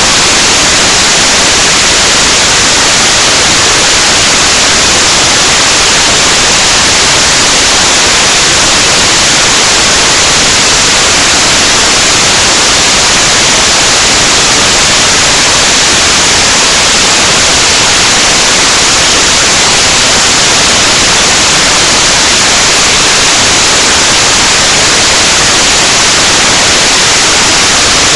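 Loud, steady static hiss, an even white-noise rush with no change in level.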